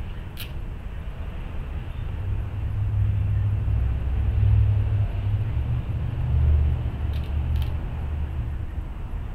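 A motor vehicle passing: a low engine rumble that swells over a few seconds, peaks, then fades. A few faint sharp clicks sound near the start and twice about seven seconds in.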